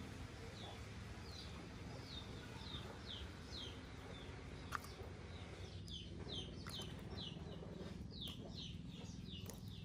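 A bird calling in a fast series of short, high, falling chirps, about three a second, with a pause around the middle, over a low steady hum. A single sharp click about five seconds in.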